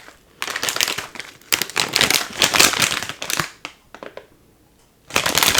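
Plastic instant-ramen packet crinkling as it is handled, in two spells with a lull of about a second and a half between them.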